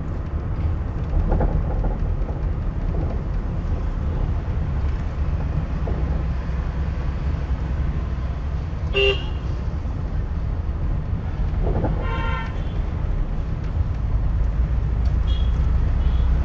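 Steady low engine and road rumble of a car driven slowly, heard from inside the cabin. A short horn toot about nine seconds in and a longer horn blast about three seconds later.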